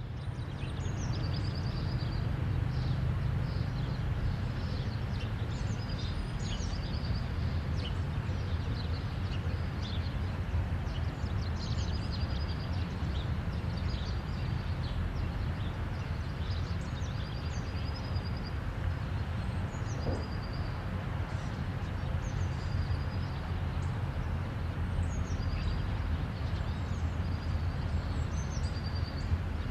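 Steady rumble of distant highway traffic with birds chirping and calling over it throughout.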